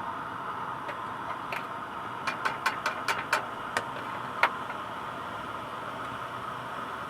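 Wood fire crackling: a steady hiss with a quick run of sharp pops and snaps about two to four and a half seconds in.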